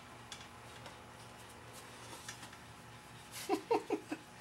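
Quiet handling of a flat box, with a few faint clicks and rustles. Near the end comes a quick series of four short pitched sounds.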